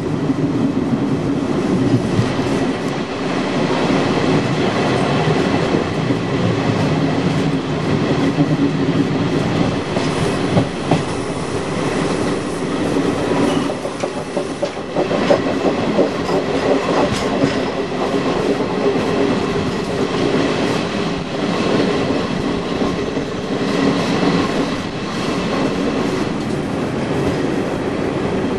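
Regional passenger train running slowly over station pointwork, heard from an open carriage window: a steady rolling rumble with wheels clattering over rail joints and switches, and a faint steady whine.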